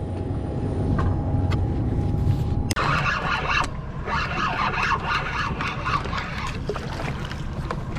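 Boat's outboard motor running with a steady low rumble. About three seconds in there is a sharp click, and a louder, rougher hissing noise joins the rumble.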